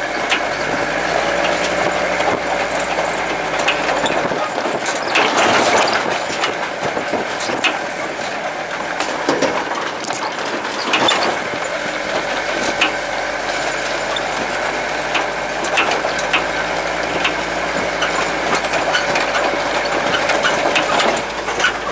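GAZ-63 truck's straight-six side-valve engine running steadily, with frequent knocks and rattles throughout, a cluster of them about five seconds in and another about eleven seconds in.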